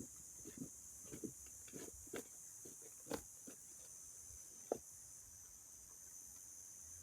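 Faint, irregular light knocks and clicks, about a dozen over the first five seconds, then only a steady hiss.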